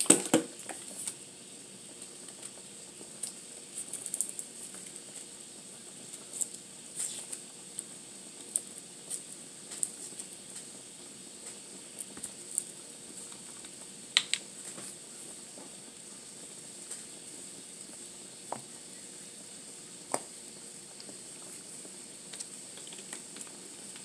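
Scattered light clicks and taps from handling a plastic salad-dressing bottle and utensils, over a steady faint hiss.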